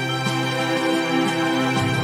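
Background music: sustained chords with a soft steady beat about once a second.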